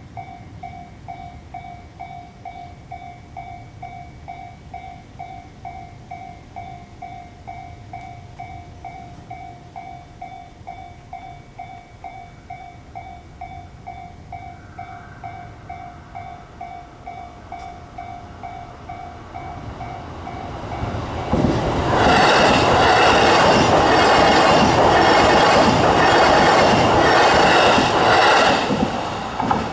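Japanese level-crossing warning bell ringing in an even electronic ding about twice a second. After about twenty seconds a JR Nambu Line electric train approaches and passes over the crossing with wheel clatter. It is loudest for about seven seconds, then quickly fades.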